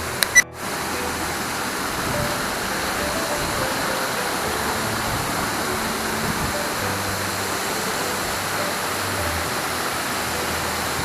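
Steady rush of a waterfall, with background music running underneath. A sharp click and a brief dropout come just under a second in.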